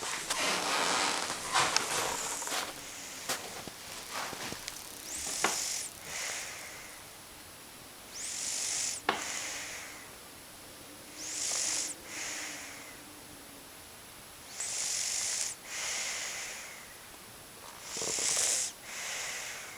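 A five-year-old girl snoring in her sleep: hissy breaths in two parts, about every three seconds. A few sharp clicks and rustles come in the first few seconds.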